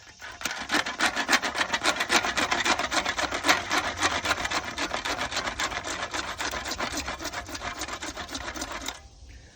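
Handsaw cutting through an AC drain pipe with rapid back-and-forth strokes, stopping about nine seconds in as the cut finishes.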